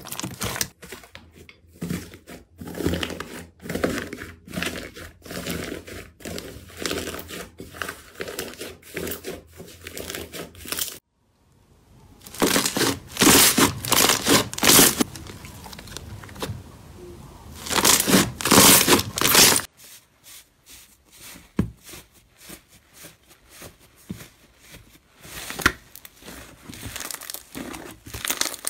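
Hands squeezing and kneading slime: sticky squelching with many small crackling pops of trapped air, several slimes in turn. It breaks off briefly about eleven seconds in, is loudest in two squishy stretches in the middle, and thins to scattered clicks near the end.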